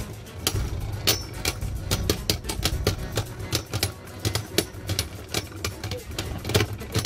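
Two spinning Beyblade Burst tops, Vanish Fafnir prototype and Dynamite Belial, repeatedly clashing in a plastic stadium: rapid, irregular clicks and clacks, several a second, over a low steady hum.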